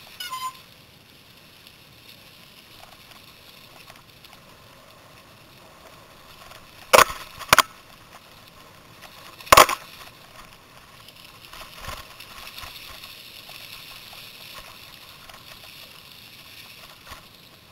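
Mountain bike ridden along a leaf-covered dirt forest trail: steady tyre and rattle noise, broken by three sharp knocks, two close together about seven seconds in and one more about two seconds later.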